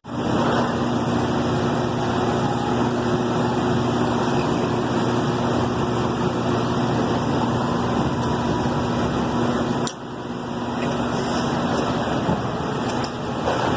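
HVAC equipment running: a steady whir of fan and motor noise with a low, even hum. It drops briefly about ten seconds in, then carries on.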